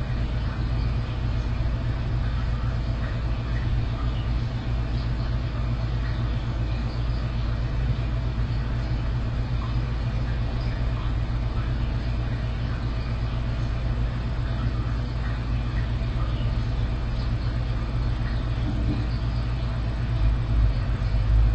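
A steady, low rumbling hum with a faint even hiss over it, swelling briefly near the end.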